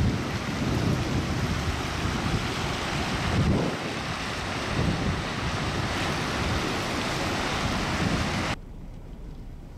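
Strong gusting wind buffeting the microphone over the rushing hiss of cars driving through flood water on the road. About eight and a half seconds in it cuts off to a much quieter, steady background hum.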